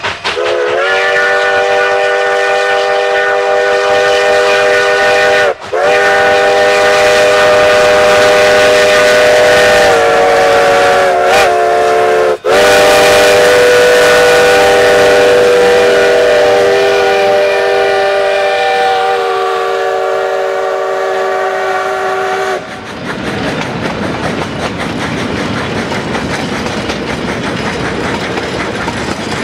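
Chime steam whistle of narrow-gauge steam locomotive No. 488 blowing long blasts, with two short breaks and a brief pitch wobble. About three-quarters of the way through the whistle stops, and the freight cars roll past with a clatter of wheels on rail.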